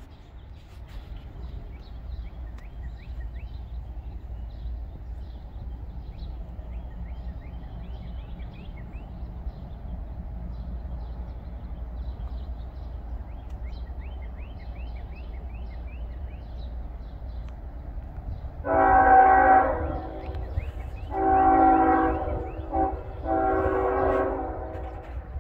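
An approaching diesel intermodal freight train rumbles low and steadily, then its locomotive sounds a chord air horn near the end: two long blasts, a short one and a long one, the grade-crossing signal.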